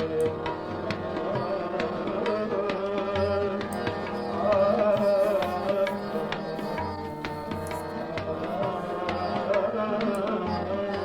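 Music with a steady hand-drum beat under a wavering melodic line: the instrumental lead-in to a Punjabi song.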